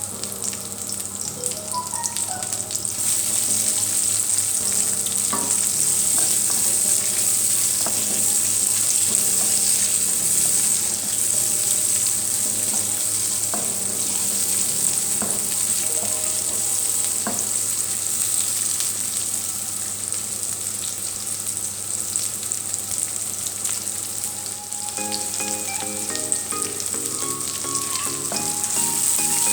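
King prawns frying in hot oil in a pan: a steady, loud sizzle that strengthens about three seconds in, with occasional light clicks from stirring.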